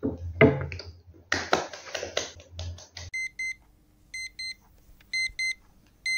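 Electronic alarm clock beeping in short double beeps, about one pair a second, starting about three seconds in. Before it, a few short loud noisy sounds.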